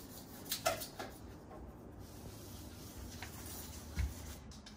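Faint rubbing of a hand wiping across a quartz countertop, with a few light knocks and taps and a soft thump near the end.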